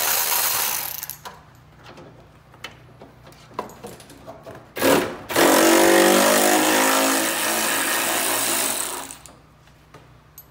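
Cordless power ratchet running to spin out bumper bolts: one run stops about a second in, light clicks of handling follow, then a second run of about four seconds starts about five seconds in.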